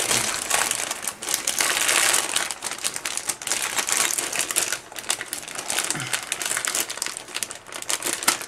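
A clear plastic bag of model-kit parts crinkling and rustling as it is handled, with many small crackles throughout; it stops near the end.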